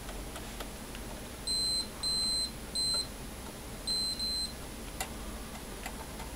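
Multimeter continuity beeper giving five short, high, steady beeps, the last two nearly back to back, each time the test probe touches a pin wired to the other lead: the beep signals an electrical connection. A sharp click about five seconds in.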